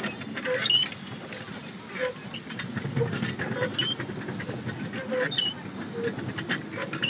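A small boat's moving parts creak and squeak in a loose, repeating rhythm as it is propelled across the water, with a low rumble of water and hull noise underneath.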